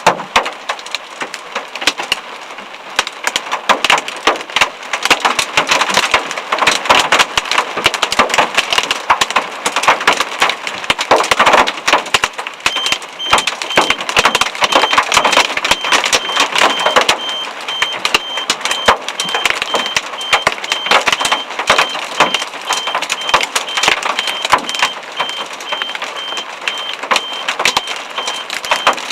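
Hailstones pelting down in a dense, rapid patter of hard impacts. About thirteen seconds in, a high electronic alarm starts beeping on and off in an even rhythm.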